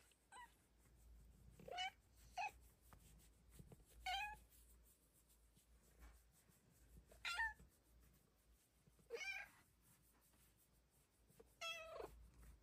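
A Snow Lynx Bengal cat giving tiny meows, about seven short calls spaced a second or more apart, the last one a little longer.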